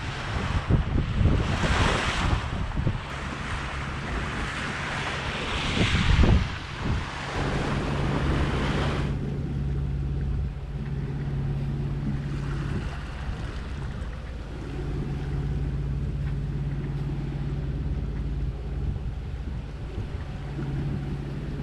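Wind buffeting the microphone over rushing sea water for about the first nine seconds, then it cuts away to a quieter steady low drone of the sailboat's inboard engine motoring, with water along the hull.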